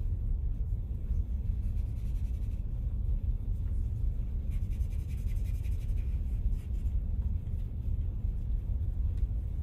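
Charcoal scratching on drawing paper in short strokes for a second or two in the middle, over a steady low rumble.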